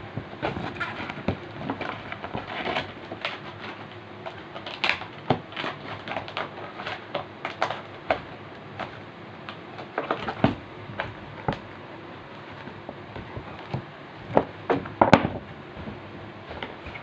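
Clear plastic bag crinkling and rustling as it is handled and unfolded, a run of irregular crackles with the sharpest one near the end.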